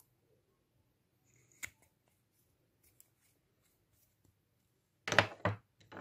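Plastic liquid-lipstick tube being handled. The applicator wand goes back in with a small click, a few faint ticks follow, and then comes a short cluster of louder plastic clacks and scrapes about five seconds in.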